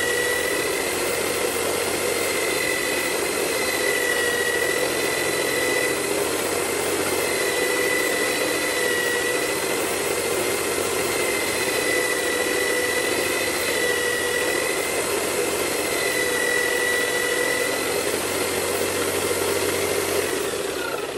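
Homemade belt sander driven by a corded electric drill, running steadily with a high motor whine over the hiss of the abrasive belt as a wooden strip is sanded on it. The whine dips slightly now and then, and at the very end the drill is switched off and the pitch falls as it spins down.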